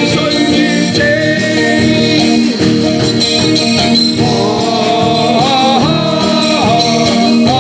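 Live band playing a Cantopop medley, with a vocalist singing over the band, the voice most prominent from about four seconds in.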